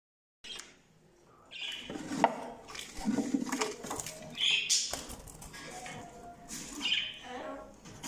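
Caged budgerigars chattering and squawking in short, irregular bursts, with a few sharp clicks.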